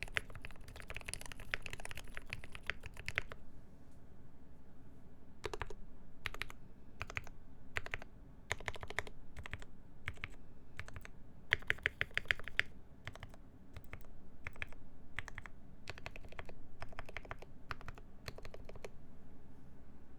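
Typing on a Mode 80 mechanical keyboard with lubed ZealPC Tealios linear switches in milky Gateron top housings, on a full brass plate with GMK keycaps. A fast, continuous run of keystrokes for about the first three seconds gives way to separate strokes and short bursts of a few keys, which stop near the end.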